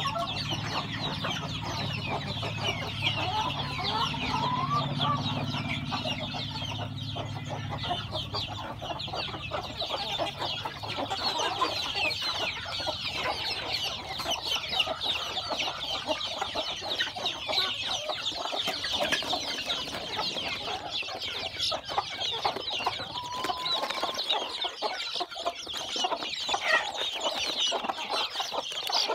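A flock of chickens calling continuously: many young chicks peeping in dense, overlapping high chirps, with an occasional longer call from an older bird. A low hum sits underneath for the first several seconds and fades out about eight seconds in.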